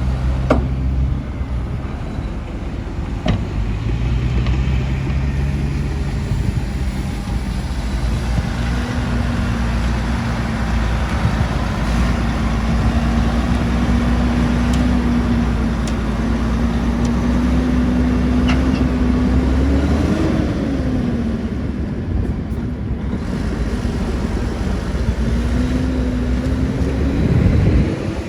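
Heavy diesel earthmoving machinery running steadily, with a whining tone that rises briefly about 20 seconds in and again near the end, and a few sharp clicks.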